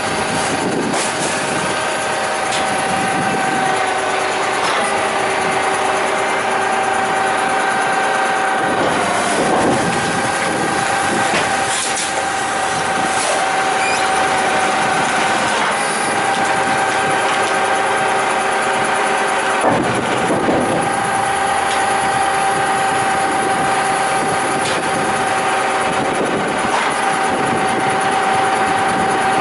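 Side-loading rubbish truck's engine and hydraulic compactor running as the packer arm sweeps bags round the hopper, with a steady whine and a couple of knocks about a third and two-thirds of the way through.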